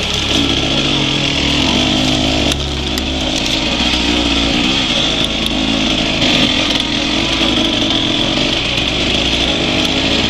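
Enduro dirt bike engine running on an off-road hill climb, its revs wavering up and down with throttle.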